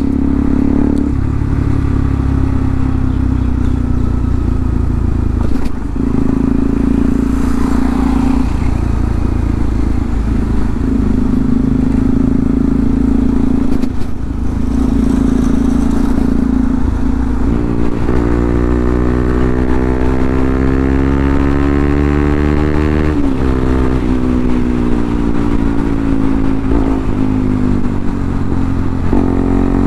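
Bajaj Pulsar NS200's single-cylinder engine running through a replica Akrapovič full exhaust system, heard from the rider's seat. The note holds steady with short breaks at first. From about two-thirds of the way in, it climbs in pitch as the bike speeds up, with two sharp drops at gear changes, the second near the end.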